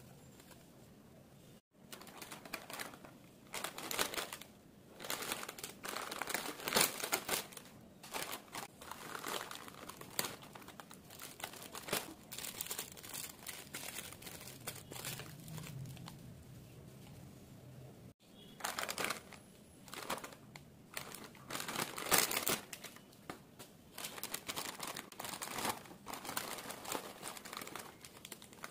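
Plastic snack packets and cellophane toy wrappers crinkling as they are handled and opened by gloved hands, in irregular bursts.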